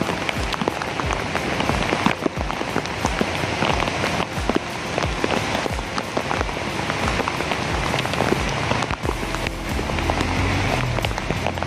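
Heavy rain falling, with many drops ticking sharply close by. A low steady hum joins about nine seconds in.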